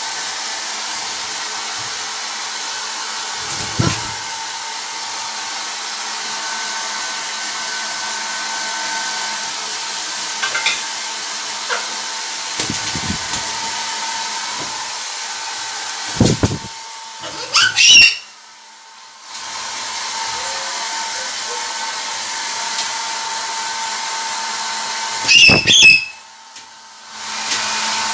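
Hair dryer blowing steadily, drying a freshly bathed blue-and-gold macaw. The macaw gives two loud squawks, about two-thirds of the way through and again near the end, and the dryer sound dips briefly after each. A few low thumps come in between.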